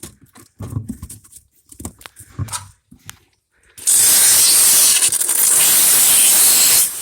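A few light clicks and handling knocks, then about four seconds in a loud, steady hiss starts abruptly and holds, easing slightly just before the end.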